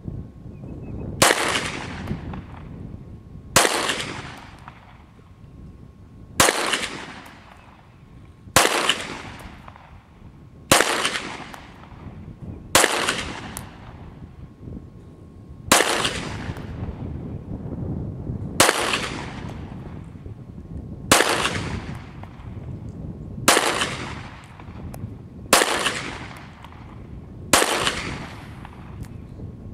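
Third-generation Glock 17 9mm pistol fired in slow single shots, about twelve of them two to three seconds apart, each trailing off in a short echo. It is shooting lacquered steel-case Tula ammunition.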